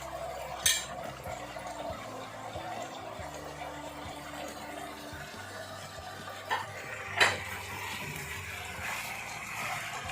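Chicken and vegetables sizzling in a frying pan, with a utensil knocking against the pan once about a second in and twice near the end. Quiet background music underneath.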